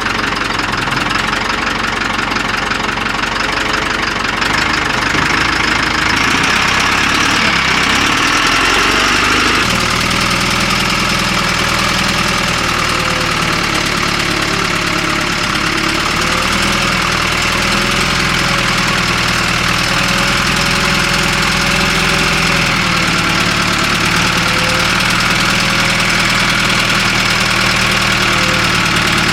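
Backhoe's diesel engine running steadily at close range; its note shifts about six seconds in and again about ten seconds in, then holds steady.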